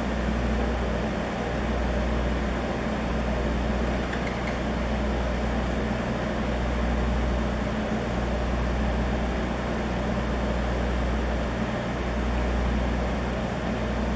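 Steady low drone of a ship's diesel engine with a constant hiss over it. The deep rumble swells and eases slightly every second or two.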